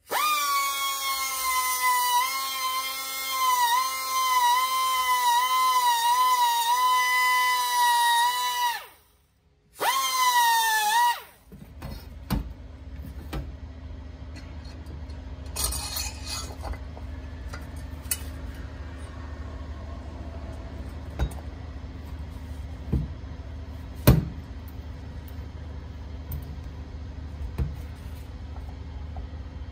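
Rotary grinder with a small carbide burr cutting the aluminium crankcase of a Honda Dio 50 around the transfer ports, with a high, slightly wavering whine. It stops about nine seconds in and runs again in one short burst. After that comes a low hum, with a few sharp metal knocks and clicks as the cylinder is set over the studs.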